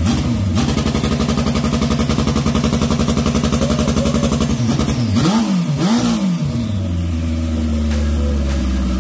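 Turbocharged Honda CB750 single-cam inline-four engine held on its two-step rev limiter: a rapid, even stutter at steady revs. About five and six seconds in it is blipped twice, rising and falling, then settles to a steady idle.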